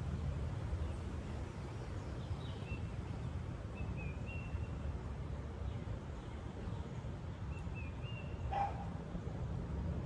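Woodland ambience with a steady low rumble, over which a distant animal gives a short, thin, high call about every three to four seconds. One sharper, fuller call comes near the end.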